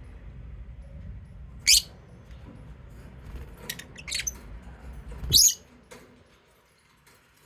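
Lovebirds giving short, shrill, high-pitched chirps, about five calls spaced a second or so apart, over a low rumble that drops away after about five and a half seconds.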